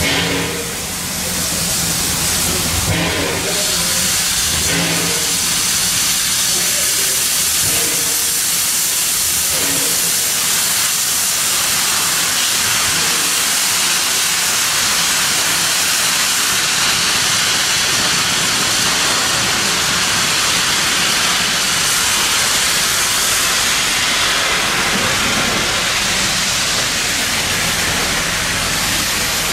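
Queensland Rail C16 class steam locomotive venting steam with a steady, loud hiss.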